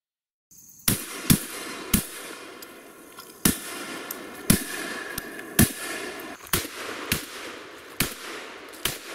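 Beretta 1301 Tactical 12-gauge gas-operated semi-automatic shotgun fired in quick strings. The shots come about ten in all, starting about a second in, some pairs about half a second apart and others a second or more apart.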